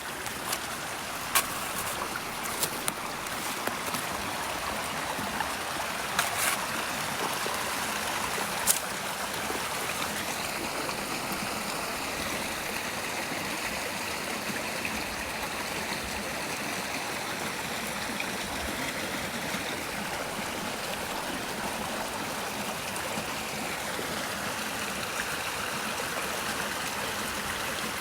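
Stream water flowing with a steady rushing sound. A few sharp clicks stand out in the first several seconds.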